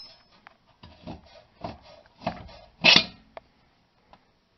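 Short, irregular metal scrapes and knocks, the loudest about three seconds in, as a long suspension bolt is pried and slid out of the rear lower control arm and knuckle.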